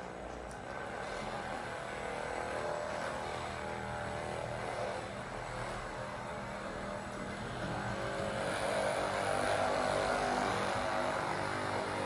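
A machine's motor running with a steady hum that grows louder in the second half.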